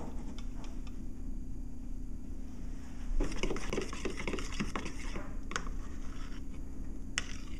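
A metal fork stirring a thick peanut butter mixture in a bowl, clinking and scraping against the bowl in quick, repeated strokes that start about three seconds in.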